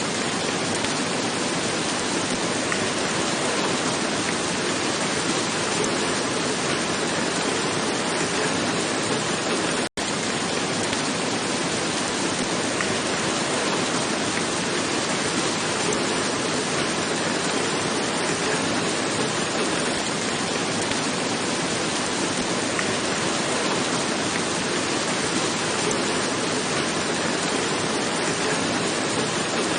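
Heavy rain falling on a roof: a steady, dense hiss of many drops. It cuts out for an instant about ten seconds in.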